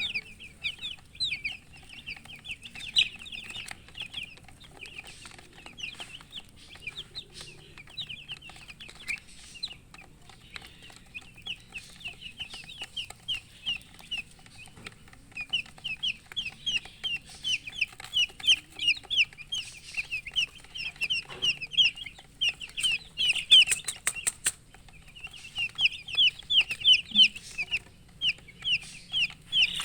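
A group of baby chicks peeping non-stop in rapid runs of short, high, falling notes, which the uploader puts down to thirst for drinking water. A brief crackle comes about three quarters of the way through.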